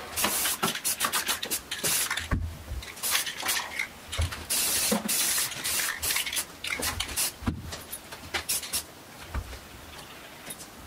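Aerosol spray paint can hissing in short bursts as paint is sprayed onto a rifle, with clicks and a few dull knocks between the bursts.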